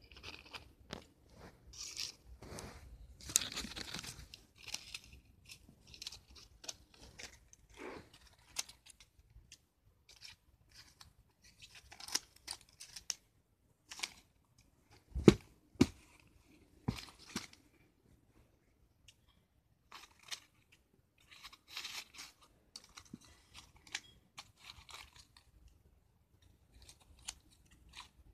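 Scissors snipping and tearing a disc of notebook paper, with irregular crackling and rustling of the paper as it is handled. A single sharp knock about halfway through is the loudest sound.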